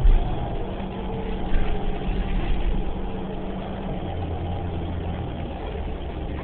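New Flyer Xcelsior XDE40 diesel-electric hybrid bus running, heard from inside the passenger cabin as a steady low drivetrain hum with road noise. There is a sharp thump right at the start and a smaller knock about a second and a half in.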